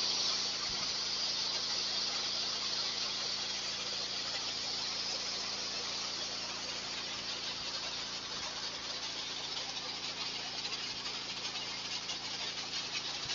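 Steady hiss of an aérogommage (low-pressure abrasive air-blasting) nozzle spraying fine media to strip old furniture, with a faint steady hum underneath.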